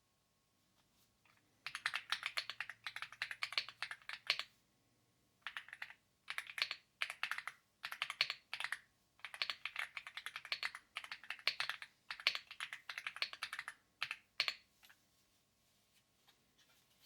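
Fast typing on an AULA F75 mechanical keyboard with linear LEOBOG Reaper switches: runs of rapid keystrokes with short pauses between them, stopping about three seconds before the end, with a few single key presses after.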